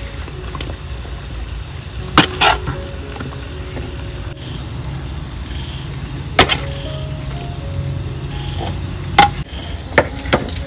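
About six sharp clicks and knocks, spread unevenly, over quiet background music and a low steady hum.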